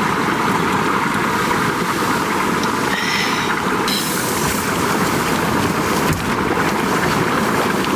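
Strong wind rushing steadily against a tent.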